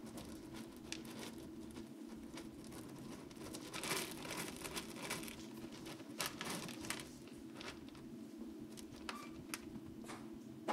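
Faint, irregular light scratching, rustling and pattering of kittens' paws, busiest about four seconds in and again around six to seven seconds, over a steady low hum.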